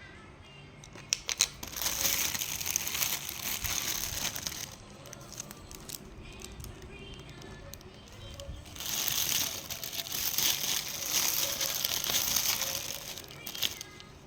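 Crinkling, rustling noise in two long stretches, with a few sharp clicks between them.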